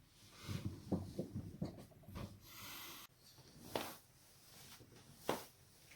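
Spinal joints cracking: two sharp pops about a second and a half apart in the second half, after a run of soft rubbing and clicking and a short hiss.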